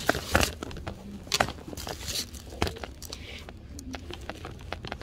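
Crinkly plastic packaging rustling close to the microphone, with scattered clicks and knocks over a low steady rumble.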